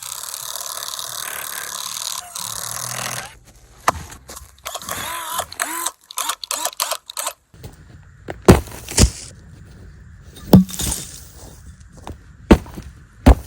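Scraping and grinding for about three seconds, then choppy rubbing, then a string of sharp knocks and thuds a second or two apart from hard objects striking.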